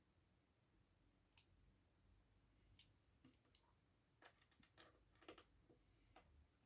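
Near silence broken by faint clicks of small repair tools and tiny screws on an iPhone 6s: two sharper clicks about a second and a half apart, then a run of lighter clicks in the second half.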